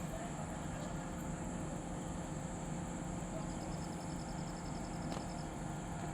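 XCMG 500-tonne crane's diesel engine running at a steady speed, with a brief run of rapid, faint high ticks about halfway through.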